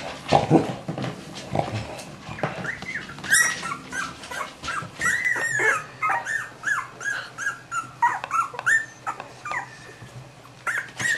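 Cavalier King Charles Spaniel whimpering: a long run of short, high whines that rise and fall in pitch, several a second, after a few short noises at the start.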